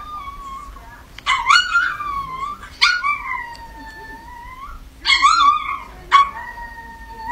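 Chihuahua howling with its muzzle raised: four calls, each opening with a sharp yap that draws out into a long, high howl. The end of an earlier howl trails off in the first second.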